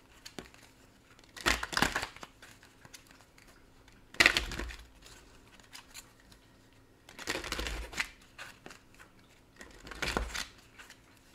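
A deck of oracle cards being shuffled by hand: four short shuffling bursts about three seconds apart, with quiet pauses between.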